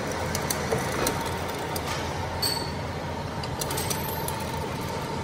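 Metal lathe running with a truck wheel hub spinning in its chuck: a steady mechanical hum, a faint steady whine from about a second in, and scattered light clinks.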